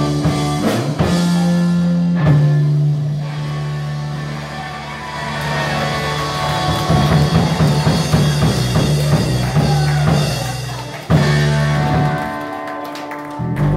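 Live rock band playing, with guitar, keyboard and drum kit. Loudness dips briefly, then a sharp loud hit comes about eleven seconds in.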